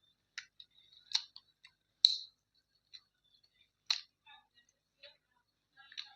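Close-up eating sounds: irregular wet mouth clicks and smacks while chewing, several sharp ones spaced unevenly, the loudest about two seconds in and near four seconds.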